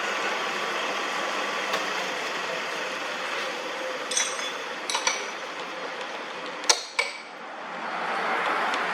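Metal lathe running with a steady whir, broken by several sharp metallic clinks that ring briefly, the loudest two close together about two-thirds of the way through.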